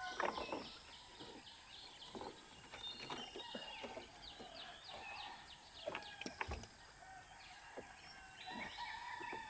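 Birds calling in rapid repeated chirp series and short whistles, with a few scattered knocks.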